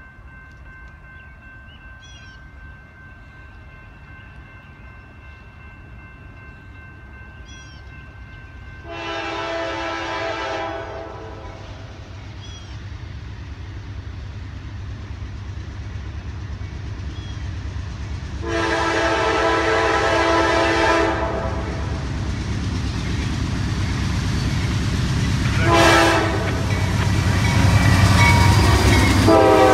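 Norfolk Southern freight train's lead GE Dash 9 diesel locomotive approaching and sounding its multi-chime air horn in the grade-crossing pattern: two long blasts, a short one, then the start of a final long one. Under the horn the diesel engine and rolling train rumble grows steadily louder as it nears. Birds chirp faintly before the horn begins.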